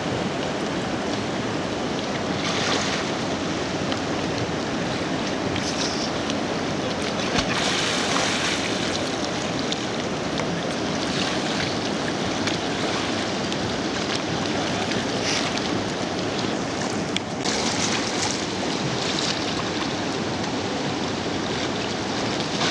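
Flowing river water rushing steadily, with a few brief splashes scattered through.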